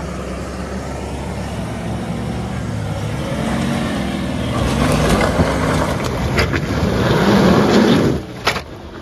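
Toyota LandCruiser 300's twin-turbo V6 working hard and revving as it climbs a steep rutted dirt hill, growing louder, with a few sharp knocks about six and eight seconds in. The engine note drops away suddenly just after eight seconds as the revs come off.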